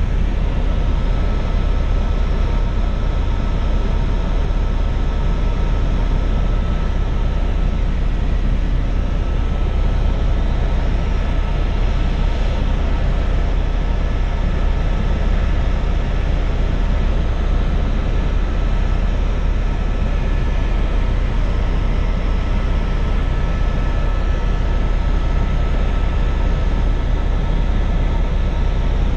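Helicopter in flight heard from inside the cabin: a loud, steady drone of rotor and engine with a deep rumble and a thin, high whine held steady.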